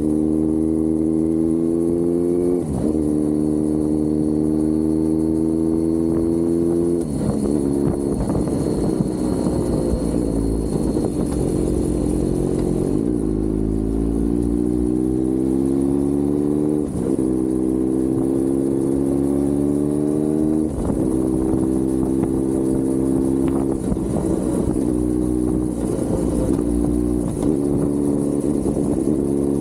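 Kawasaki Z900's inline-four engine pulling under acceleration, its pitch climbing steadily and then dropping sharply at each gear change, several times in a row.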